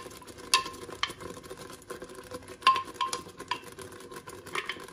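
Blended tomato-and-cream sauce sizzling in a hot stainless steel pot as it is poured in and stirred, with repeated sharp clinks that ring briefly as the blender jar and utensil knock against the metal pot.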